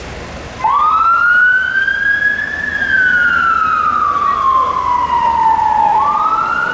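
Police van's electronic siren switching on abruptly about half a second in, then going in a slow wail: it rises, falls gradually over several seconds and starts rising again near the end.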